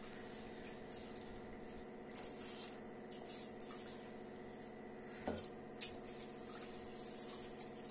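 Faint scattered clicks and pattering as rice is handled by hand in a steel bowl and added to a pot of boiling water for sakkarai pongal, over a steady low hum.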